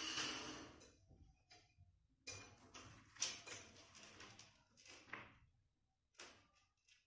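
Faint whooshes and hits of an anime fight scene through a smartphone's small speaker: a long whoosh fading out in the first second, then a cluster of short swishes and impacts, and one more hit about six seconds in.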